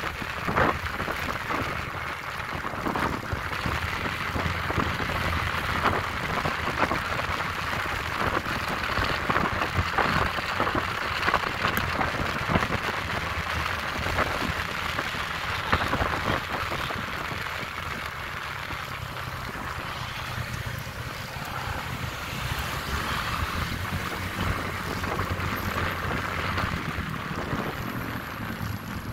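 Wind rushing and buffeting over a phone microphone on a moving motor scooter, with the low steady hum of the Honda Click 125i's single-cylinder engine underneath.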